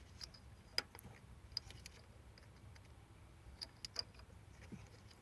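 Faint scattered clicks and taps of hands handling a small plastic wiring connector and meter test leads.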